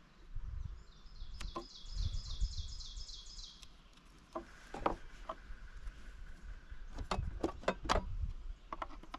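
A small songbird singing a quick trill of about a dozen repeated high notes. Then a scatter of sharp clicks and snips from scissors trimming foam gasket tape and hands handling a plastic box.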